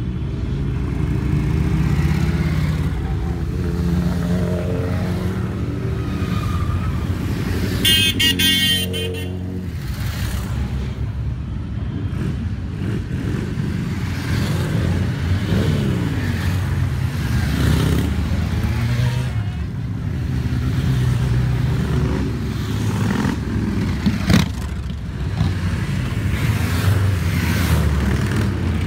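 Motorcycles riding past one after another at low speed, their engines running and revving. A horn honks for about a second and a half some eight seconds in, and a single sharp crack sounds near the end.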